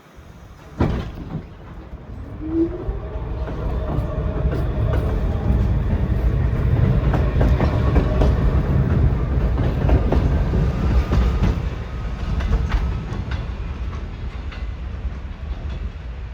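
New York City Subway train running on the track: a loud low rumble with wheels clicking over the rail joints. It builds from a few seconds in and eases a little near the end. A sharp knock comes about a second in.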